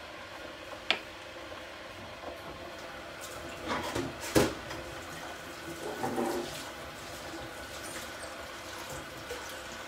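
Kitchen cooking sounds: a steady, watery hiss, with a sharp click about a second in. Utensil clatter around four seconds in ends in a loud knock as a slotted spoon is laid on a wooden chopping board, and there is lighter clatter a couple of seconds later.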